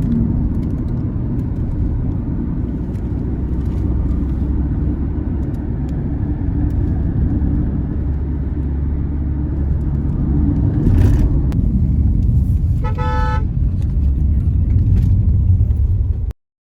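Steady low rumble of a car driving, with road and engine noise. A vehicle horn gives one short toot about three-quarters of the way through. The sound stops suddenly just before the end.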